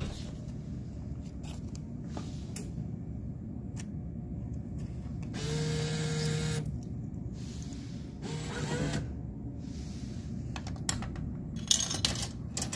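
Bill acceptor on a Coca-Cola vending machine pulling in a dollar bill with a short, steady motor whir about five seconds in. A second, shorter whir follows about three seconds later. Sharp clicks and rattles come near the end.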